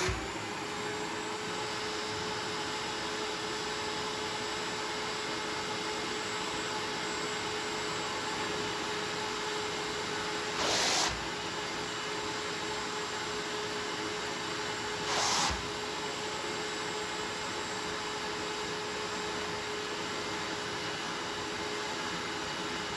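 Small Shop-Vac wet/dry vacuum running through a clear hand extractor tool pressed into wet carpet, sucking disinfectant rinse and milk out of the carpet and pad. A steady rushing suction with a constant motor tone, which swells briefly louder twice near the middle.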